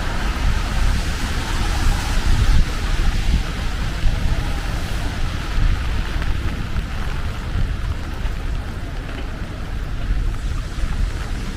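Steady rainy city street ambience: rain hiss over a low, continuous rumble of traffic.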